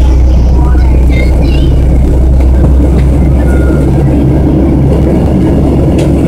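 Loud, steady drone of an airplane's engines and airflow heard inside the cabin.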